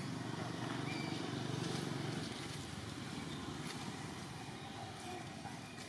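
Low, steady rumble of a motor vehicle's engine, swelling about a second and a half in and then slowly fading.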